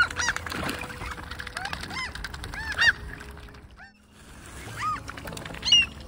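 A flock of gulls calling: many short, harsh squawks that rise and fall in pitch, several birds overlapping. The loudest calls come just after the start, near three seconds in and near the end.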